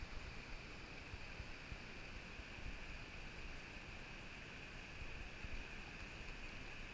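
Steady rush of running river water from a riffle, with low wind rumble on the microphone.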